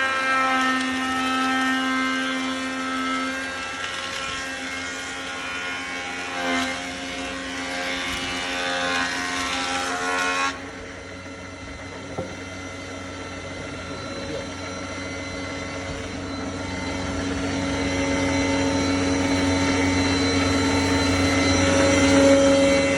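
Oscar planer machine running with a steady whine, under a harsh hissing noise that cuts off abruptly about ten seconds in, leaving the machine running on its own and growing a little louder toward the end.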